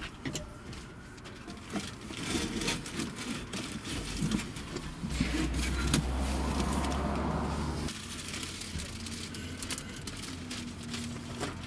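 Clunks, knocks and rustling of a steel scooter frame and a cardboard box being shifted around in a car's back seat. A louder low rumble comes in about five seconds in and cuts off suddenly about eight seconds in.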